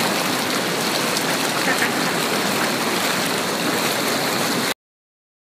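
Hot tub with its jets running, the water churning and bubbling in a steady rush that stops abruptly near the end.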